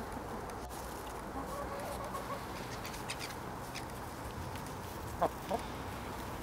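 Chickens clucking: a soft drawn-out call about a second in, then two short sharp clucks near the end.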